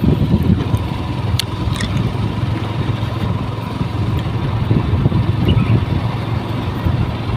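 Motorcycle engine running steadily under way, heard from the moving bike, with road and wind noise.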